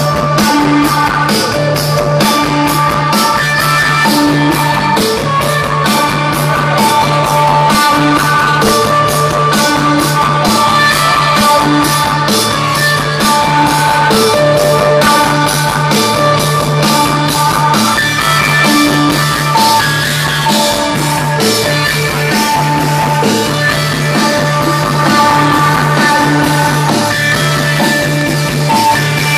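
A rock band playing live, heard from within the audience: a steady drum beat, a repeating bass line and guitar, loud and continuous.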